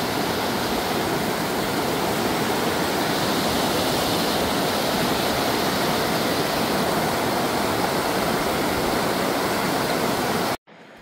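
Fast mountain stream rushing and splashing over a bed of rocks and boulders, a steady loud rush. It cuts off suddenly just before the end, giving way to a much quieter background.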